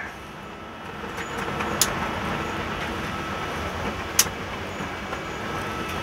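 Steady rumble of high wind with a faint electrical hum, and two sharp clicks about two and a half seconds apart, the second louder, as the tripped 80-amp breaker is handled.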